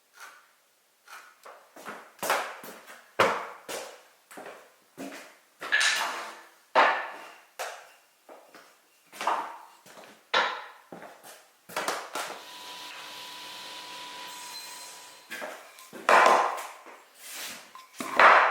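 Irregular sharp wooden knocks and taps from hand work on timber, about one a second. About two-thirds of the way through they give way to a steady whirring noise for about three seconds before the knocks resume.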